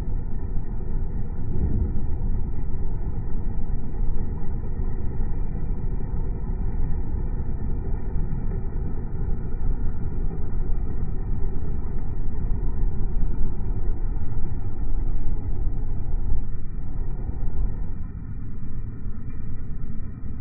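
Comfort Zone electric heater fan running, a steady low rushing of air heard right at the grille. It drops a little in level near the end.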